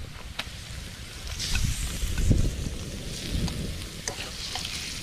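Meat tipped into a hot frying pan and stir-fried: a sizzle flares up about a second and a half in and again near three seconds, with a spatula clicking and scraping against the pan.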